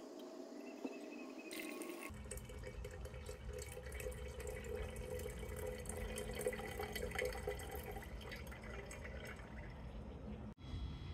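Water wash being decanted from a glass beaker into a glass jar: a thin stream of liquid trickling and splashing into the jar, poured off the settled gold powder. The pour breaks off suddenly near the end.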